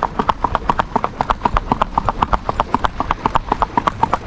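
A ridden horse's hooves striking an asphalt road in a quick, even clip-clop of several beats a second.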